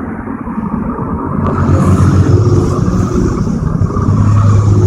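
Heavy diesel engine running, louder from about a second and a half in as it revs up, with a hiss rising alongside.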